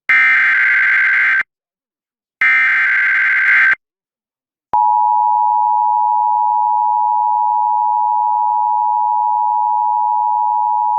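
Emergency Alert System broadcast: the last two of the three SAME header data bursts, each a harsh buzzing screech about a second and a half long with a second's gap between them. About a second later the steady two-tone EAS attention signal begins and holds, announcing a National Weather Service severe thunderstorm warning.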